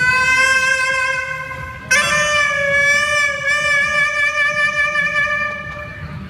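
Band music through a PA sound system: a melody of long held notes with a slight waver, one note held and a new note starting about two seconds in.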